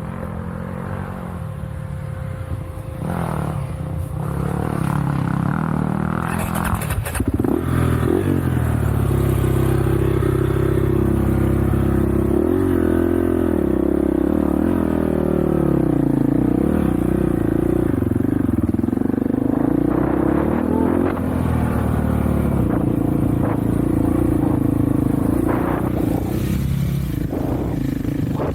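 Off-road vehicle engine running under way, its pitch rising and falling with the throttle. It gets louder about seven seconds in.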